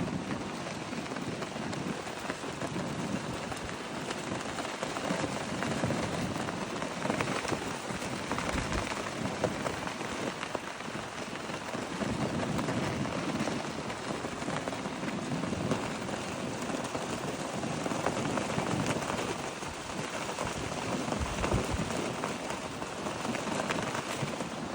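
Strong wind blowing across the microphone, a steady rushing noise that swells a little in gusts.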